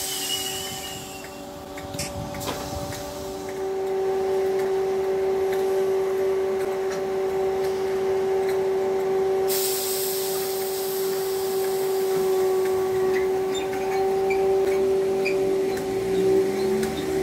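Merseyrail electric train at the station, giving a steady electric hum of constant pitch over rail noise, with a hiss that grows louder about halfway through.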